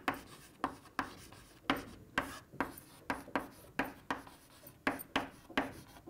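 Chalk writing on a chalkboard: a run of short scratching and tapping strokes, a couple a second, as a formula is written out.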